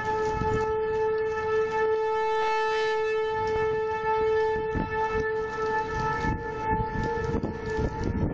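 Outdoor tornado warning siren sounding a steady, held tone: the signal to take shelter. Irregular low gusts of wind noise run beneath it.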